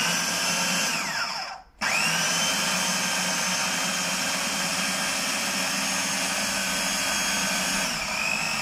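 Electric food processor motor running as it purees cooked saag greens. About a second and a half in it winds down and stops briefly, then starts again with a rising whine and runs steadily.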